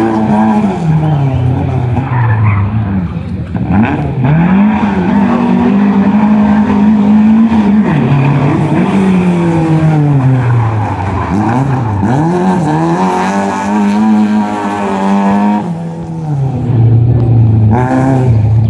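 Lada saloon's four-cylinder engine revving hard and dropping back again and again as the car is driven through tight turns, rising and falling in pitch many times, with tyres squealing in places.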